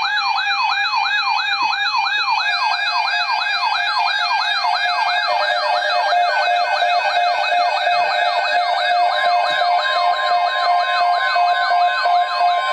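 Electronic yelp siren wailing rapidly up and down, about three cycles a second, over steady alert tones, sounding the alarm for a severe weather alert; a further steady tone joins it about three-quarters of the way through.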